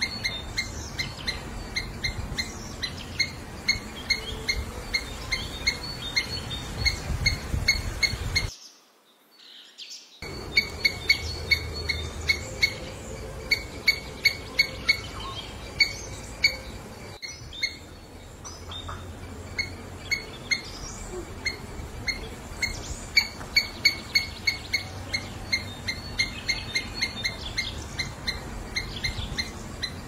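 Squirrel calling: a long series of short, high chirps repeated at an even pace of several a second, over a low outdoor rumble. The calls cut out for about a second and a half around nine seconds in, then resume.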